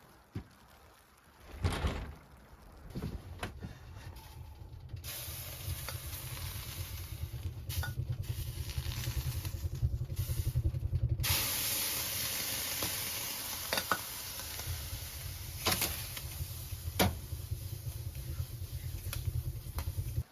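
Steady hissing and sizzling over a low rumble, growing louder about halfway through, with a few sharp clicks; it cuts off suddenly at the end.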